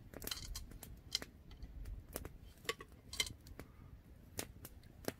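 Camp cookware and cutlery being handled: a handful of light, scattered metallic clicks and clinks.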